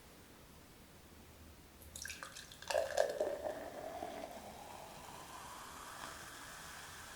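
Water poured into a pot after a few clicks, starting a little under three seconds in; the pouring tone climbs slowly as the vessel fills.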